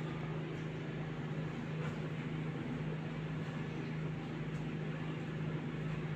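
Room tone: a steady low hum over a faint even hiss.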